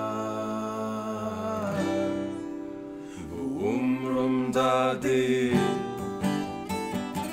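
Two acoustic guitars ringing out held chords while a man's voice sings a long, wordless, sliding line. About five and a half seconds in, the guitars move into steady rhythmic strumming.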